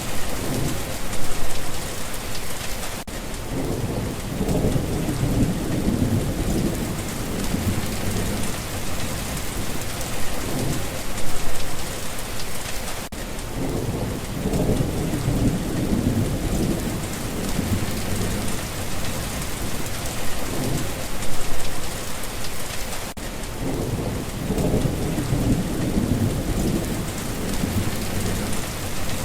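Steady rain with low rolling rumbles of thunder that come three times, about every ten seconds.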